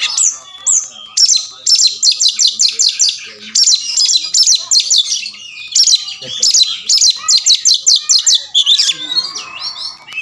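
Oriental magpie-robin singing hard: fast runs of sharp, high, down-slurred whistled notes in phrases of a second or two, with short breaks between, the agitated full song that keepers call gacor.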